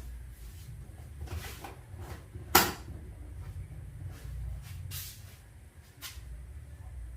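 One sharp clack about two and a half seconds in, with a few fainter clicks and handling noises around it: parts or tools being handled under the hood during an oil change, over a steady low rumble.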